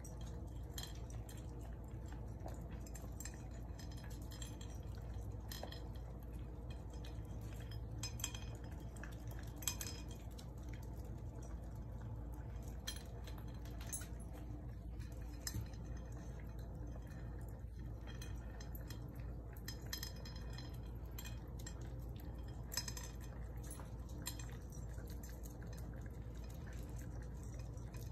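Yorkshire terriers eating from a food bowl, with scattered light clinks and ticks as food, teeth and collars knock against the bowl, over a steady low hum.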